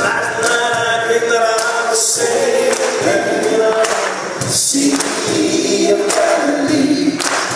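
Group of voices singing together in harmony, holding long notes that change every second or two, as part of a song.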